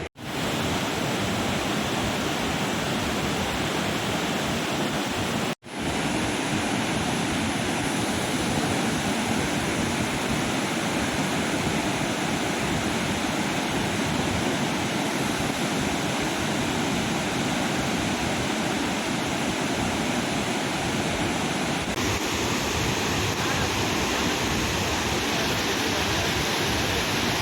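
Steady rush of water from Athirappilly waterfall, a constant even noise, broken once by a sudden brief dropout about five and a half seconds in.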